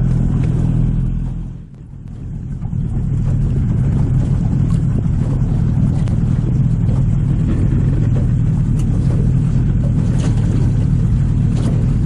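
Outboard motor running steadily at cruising speed, driving a small boat across choppy water, with wind and water noise over it. The sound dips briefly about two seconds in, then picks up again.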